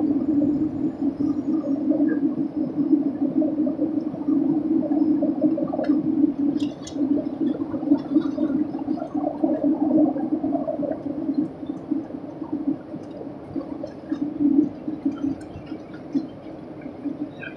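Airliner cabin noise during descent: a steady, low, wavering drone of engines and airflow, growing quieter in the last several seconds.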